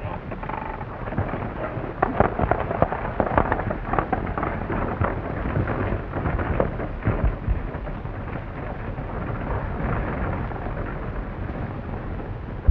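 Horse-drawn stagecoach pulling away: a team of horses' hoofbeats and the clatter and rattle of the coach's wheels on a dirt road. The clatter is densest a few seconds in and thins out later as the coach draws away.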